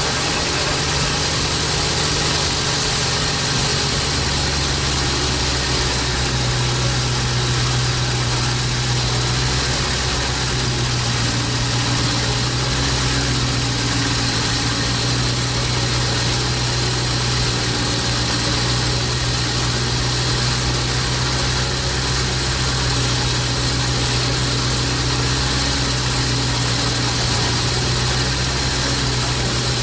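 A 1985 Corvette's freshly rebuilt L98 5.7-litre V8 idling steadily, with a strong low hum, and running well.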